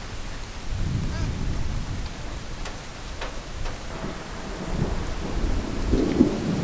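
Thunder rumbling through steady rain, swelling louder near the end.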